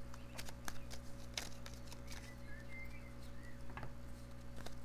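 Oracle cards being shuffled and handled: scattered light clicks and taps of card stock, over a steady low electrical hum.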